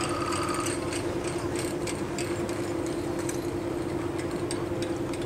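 A steady mechanical hum with irregular clicking and rattling several times a second, like machinery running.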